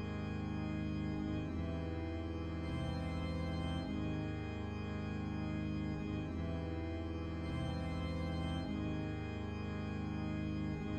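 Organ playing slow, sustained chords over a bass line that steps to a new note every second or two.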